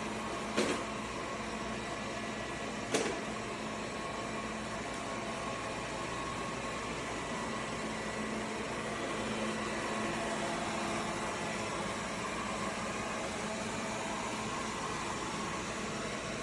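Airzeen R7 robot vacuum cleaner running steadily with its suction turned up, a constant motor and fan noise. Two short knocks sound about half a second and three seconds in.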